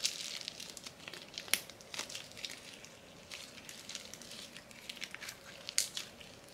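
Slime being squeezed and kneaded by hand: soft sticky crackling with scattered sharp clicks.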